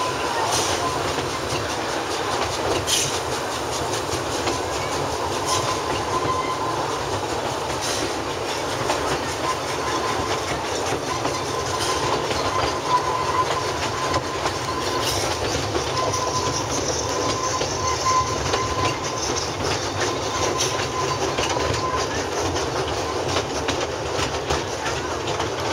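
Steam train's passenger car running along the track, heard from an open car: a steady rumble and rattle, with the wheels clicking over rail joints every two to three seconds.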